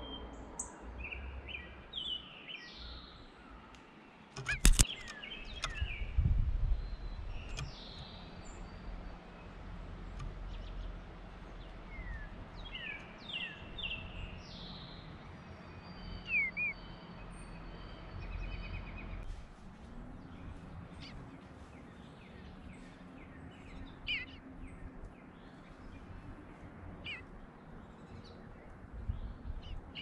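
Songbirds calling, short chirps and gliding notes scattered throughout, over a steady low background hum. A single sharp knock about five seconds in is the loudest sound.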